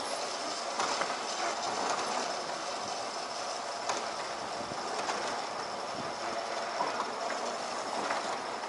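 Ladder lift's carriage running along the truck ladder's metal rails: a steady rolling rattle with irregular clicks and clacks.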